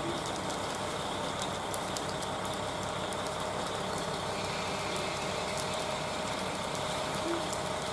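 KiHa 40 diesel railcar standing with its engine idling: a steady, even hum.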